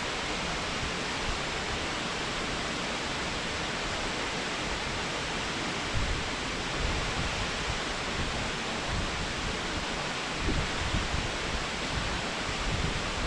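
Waterfall: a steady, even rush of falling water, with a few brief low bumps about halfway through and again later.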